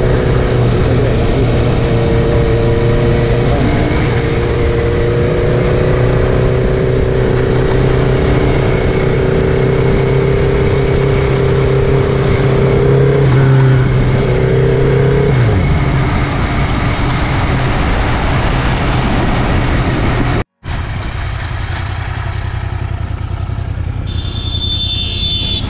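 Royal Enfield Continental GT 650's parallel-twin engine running at a steady cruise under heavy wind rush. About fifteen seconds in, the engine note drops as the bike eases off. After a brief cut, quieter roadside traffic and wind noise follow.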